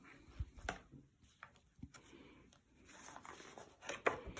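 A picture book being handled and its pages turned: faint paper rustling with a few soft taps and clicks.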